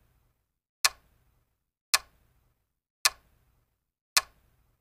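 Countdown-timer tick sound effect: sharp clock ticks, one a second, four in all, with silence between them.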